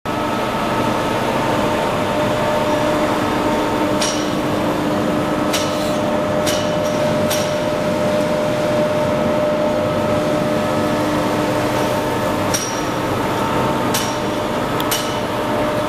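Twin-screw snack extruder machinery running: a steady mechanical hum with several held tones. Sharp metallic clicks or knocks cut through it, four between about 4 and 7.5 seconds in and three more after about 12.5 seconds.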